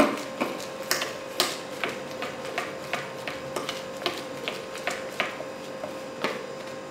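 Dry spice powders being mixed in a plastic tub: light clicks and taps against the plastic, about two a second and uneven, over a faint steady hum.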